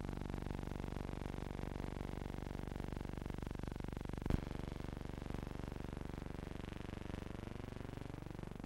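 Steady low electrical hum with hiss, the background noise of an archival film transfer, with one sharp click about four seconds in.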